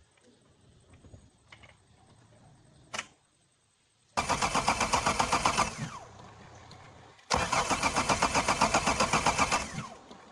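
A Toyota car's starter cranking the engine in two bursts of a second and a half to two and a half seconds each, with an even pulse of about seven beats a second. The engine does not catch and settle into a steady run.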